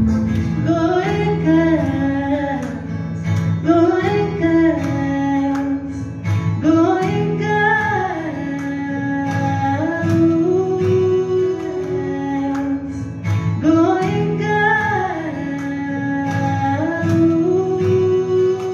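A song sung to acoustic guitar, the melody rising and falling in a phrase that repeats about every three seconds over held low notes.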